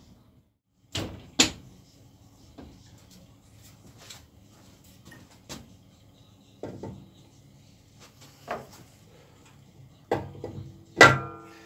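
Scattered metal knocks and clunks as the cylinder head is handled and set onto a Chevrolet Cruze engine block, ending with one loud clank that rings on briefly near the end.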